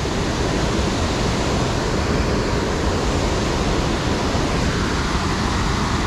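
Waterfall rushing steadily into a pool, a constant loud wash of falling water.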